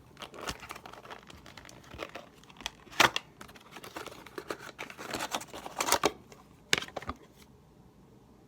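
Packaging crinkling and rustling as a puzzle cube is taken out of its box, with scattered sharp clicks and knocks, the loudest about three seconds in and a cluster near the middle.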